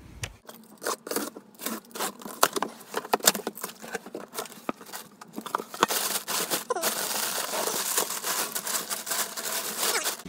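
Plastic bag, bubble wrap and packing paper crinkling and rustling as they are pulled out of a cardboard box. Scattered sharp crackles give way, a little past halfway, to a dense continuous rustle.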